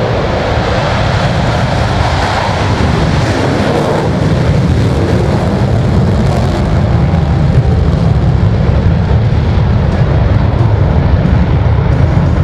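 Loud jet-engine roar of the Blue Angels' F/A-18 Super Hornets in the four-jet Diamond formation, building louder as they come closer.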